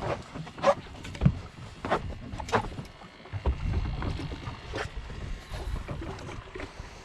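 Water slapping against the hull of a small fishing boat in a series of sharp slaps, over a low rumble.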